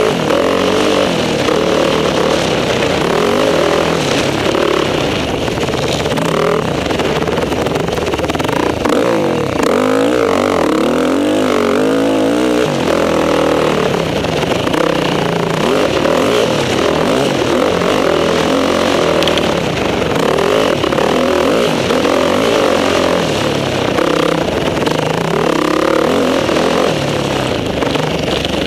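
Motocross bike engine at race pace, heard close up from on the bike, its pitch rising and falling over and over as the rider accelerates, shifts and backs off through the corners.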